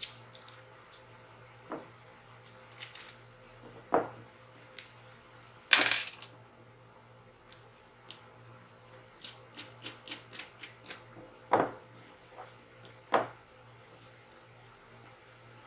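Clicks and taps of small metal hardware being handled while hex nuts are fitted onto the bolt of a wooden toggle clamp's pad, with a quick run of light ticks partway through. A low steady hum lies underneath.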